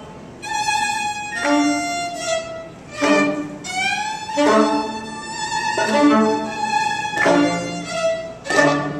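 Balkan band music led by a violin, with brass underneath, in phrases with strong accents about every second and a half; the violin slides up in pitch about four seconds in.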